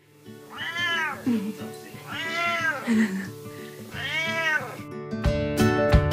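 A domestic cat meowing three times, each meow rising and then falling in pitch. Music with a beat comes in about five seconds in.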